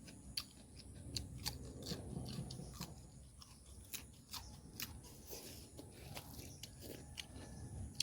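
A person chewing and crunching food close to the microphone, with irregular clicks and mouth smacks.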